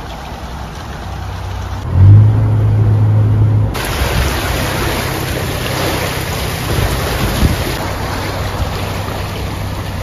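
Narrowboat's diesel engine running with a steady low hum, loudest for a couple of seconds about two seconds in. From near the four-second mark a steady rushing hiss of water and wind runs over it.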